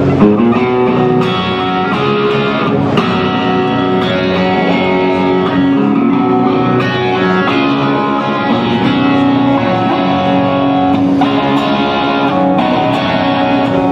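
Electric guitar played through the Avid Eleven Rack amp modeler's Matchless DC30 amp model: chords and single notes ringing out, with changes every few seconds.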